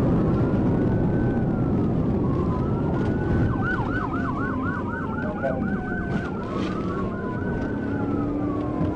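Police siren in a slow rising-and-falling wail, switching to a fast yelp of about four sweeps a second for a few seconds in the middle, then back to the slow wail. Under it runs steady road rumble from the patrol car at highway speed.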